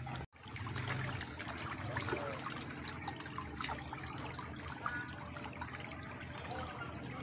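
Shallow stream running over a stony bed, a steady rush and trickle of water, with a brief dropout in the sound about a third of a second in.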